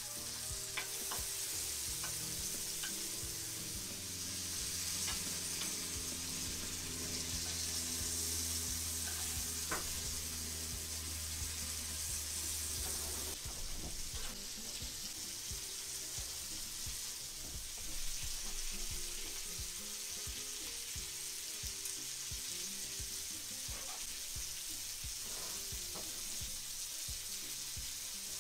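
Pike-perch fillets sizzling steadily as they fry in hot fat in a cast-iron pan, with occasional light clinks of a spoon against the pan.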